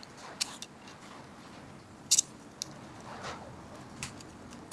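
Plastic phone panel being pried open with an old screwdriver: a handful of sharp clicks as its clips snap loose, the loudest about two seconds in, with faint scraping between them.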